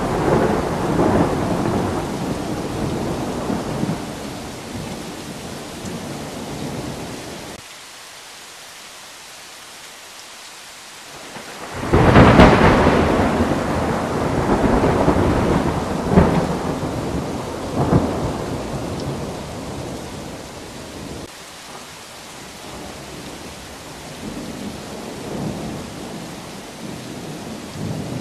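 Thunder rumbling over steady rain. A long roll dies away over the first several seconds, leaving only the rain hiss. About twelve seconds in a loud clap breaks, with sharper cracks about four and six seconds later, then fainter rolling thunder toward the end.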